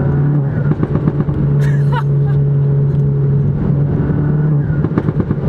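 Tuned Volkswagen Golf GTI Mk7's turbocharged 2.0-litre four-cylinder running at a steady pitch under load, with bursts of rapid chatter about half a second in and again near the end.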